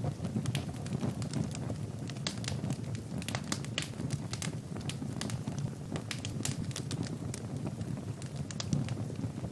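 Wood fire burning in a fireplace, with frequent irregular crackles and pops over a steady low rumble of the flames.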